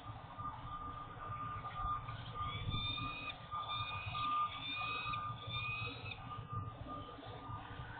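A vehicle's reversing alarm beeping steadily over a low rumble of city traffic. Between about two and six seconds in, a higher series of four slightly rising whistled tones sounds on top of it.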